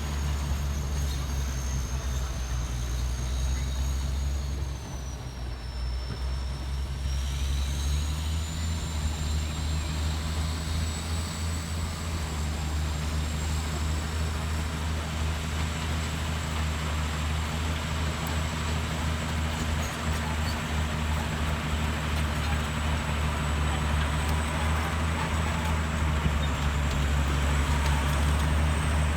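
Bulldozer's diesel engine running steadily with a high whine. About five seconds in, the sound eases and the whine drops in pitch, then rises back and holds steady.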